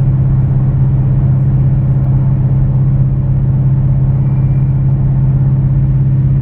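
Dodge Challenger's Hemi V8 running at a steady speed on the road, a constant low drone with no revving.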